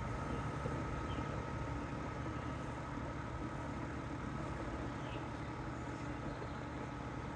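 Air-conditioning unit running quietly with a steady low hum and a faint, steady high-pitched tone.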